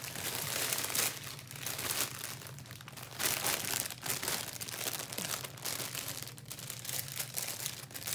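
Clear plastic packaging bag crinkling and rustling as it is handled, in dense, irregular crackles.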